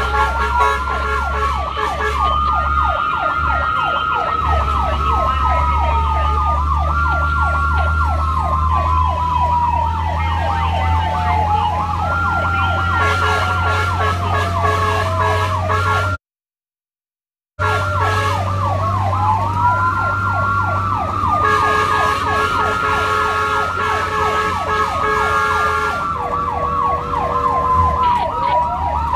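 Electronic sirens of a responding fire-rescue vehicle: a slow rising and falling wail layered with a rapid yelp, over a low engine rumble. About midway the sound cuts out completely for a second and a half, then resumes.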